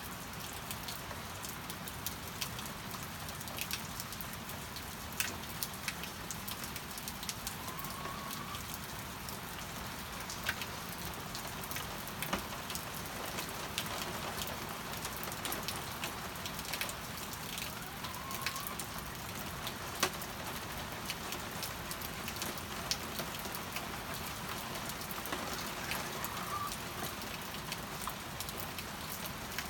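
Steady rain falling, with scattered sharper drips and drops. Three faint, brief calls from hens in the henhouse come through the rain.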